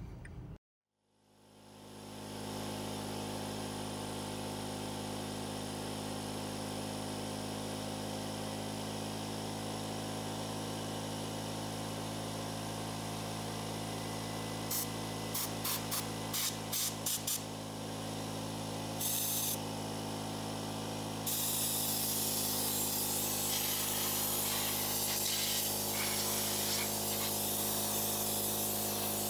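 Compressed air blasting from a blow gun on an air hose, blowing dust out of a tube television chassis: several short bursts about halfway through, another a little later, then one long steady blast to the end. A steady machine hum from the compressor setup runs underneath.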